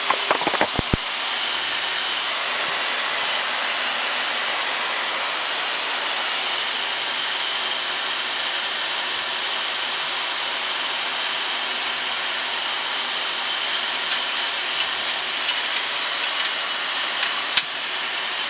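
Steady rushing noise on a Boeing 737-800 flight deck in flight: airflow and air-conditioning hiss. A few light clicks come right at the start and several more in the last few seconds.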